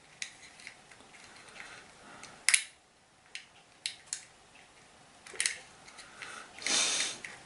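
Small plastic clicks and scraping as the parts of a battery quartz clock movement are handled and fitted together by hand. There is a sharp click about two and a half seconds in, a few lighter clicks after it, and a longer rubbing scrape near the end.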